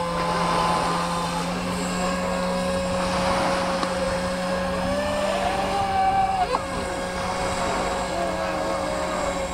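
Electric RC speedboat's brushless motor (Leopard 4074, 2150 kV) whining at speed, a steady tone that rises briefly about five seconds in and drops back, over a steady hiss.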